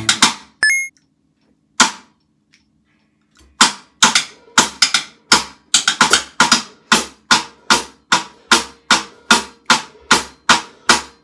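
Acoustic drum kit played on its own. A few scattered hits, then a pause, then a steady beat of sharp snare strikes about three a second, with bass-drum thumps under some of them.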